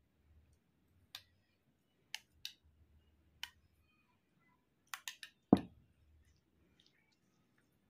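A red plastic spoon clicking against a small steel bowl a few times as curry is ladled out, then a quick run of clicks and a louder knock about five and a half seconds in as the steel bowl is set back down on the table.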